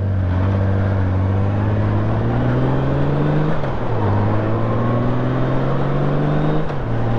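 Motorcycle engine accelerating through the gears: its pitch climbs, falls at an upshift about three and a half seconds in, climbs again and falls at a second upshift near the end. A steady rush of wind noise runs underneath.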